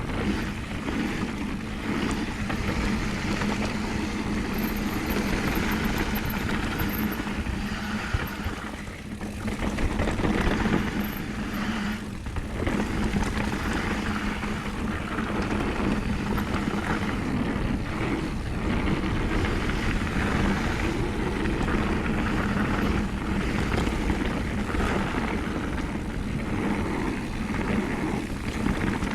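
Mountain bike descending a downhill dirt trail: a steady, noisy rumble of tyres over the ground and the bike rattling, with brief dips in the noise around nine and twelve seconds in.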